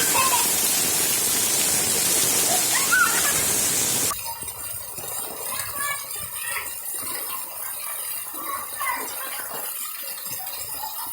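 Heavy rain pouring, a steady loud hiss, with children's shouts over it; about four seconds in it cuts off abruptly to a much quieter scene with faint voices.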